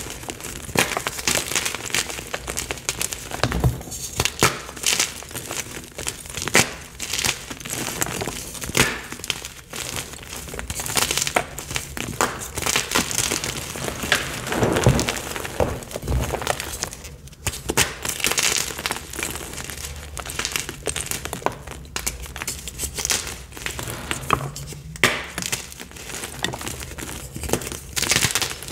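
Picsil gym chalk blocks crushed and crumbled between the hands: a continuous, irregular run of dry, crisp crunches and crackles as the blocks break into pieces and powder.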